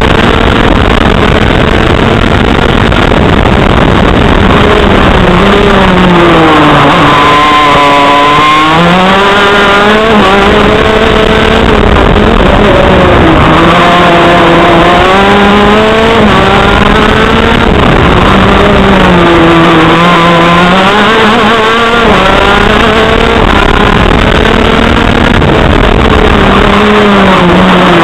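TM KZ10C 125cc two-stroke shifter kart engine running hard on track, loud and close. Its pitch sags and climbs again several times as it brakes into and drives out of corners, the deepest dip about seven to nine seconds in, with sudden steps in pitch at the gear changes.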